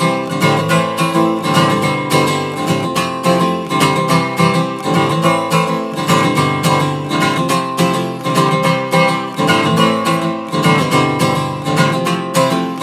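Background music led by strummed acoustic guitar, with a steady rhythm.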